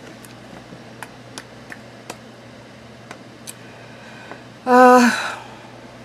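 A woman's short hummed "mm", about half a second long and the loudest sound, comes near the end. Before it are several faint mouth clicks, lips working after fresh lipstick.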